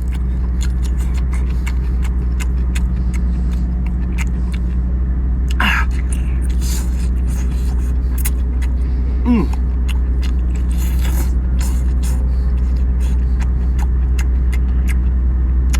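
A steady low engine drone with a constant hum. Over it come scattered sharp clicks and crunches of someone eating seafood, and two short vocal sounds about six and nine seconds in.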